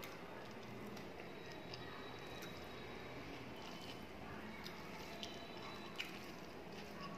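Faint wet squishes and small clicks of rice being mixed by hand with hilsa fish curry on a plate, along with chewing.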